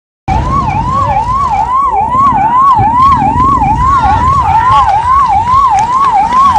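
Electronic siren sounding in quick repeated sweeps, each rising and then dropping sharply, about two a second, over a loud low rumble.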